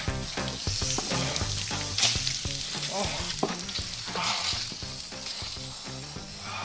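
Garden hose spray nozzle hissing as water sprays out and splashes over a person's head and onto the ground.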